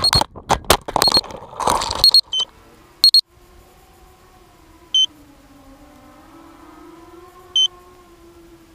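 Walkera Rodeo FPV drone crashing: its motor whine cuts off and a couple of seconds of clattering knocks follow as it hits the tree and tumbles. Then, lying still, it gives a short high electronic beep about every two and a half seconds over a faint steady hum.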